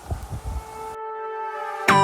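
Background music fading in: a held, steady tone that grows slowly, then a loud chord near the end as the song begins.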